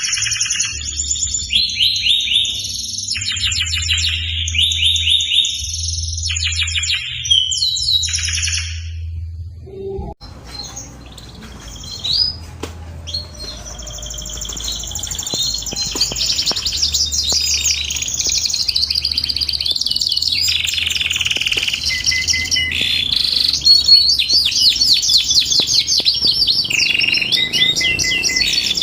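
Domestic canary singing long, rapid rolling trills and runs of repeated high chirps, with a brief pause about ten seconds in. A steady low hum sits underneath.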